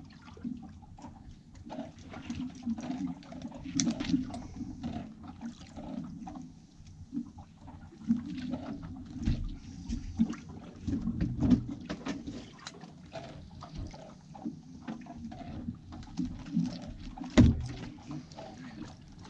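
Water sloshing and lapping against a drifting boat's hull, with scattered knocks and clatter from gear handled on deck and one louder knock near the end.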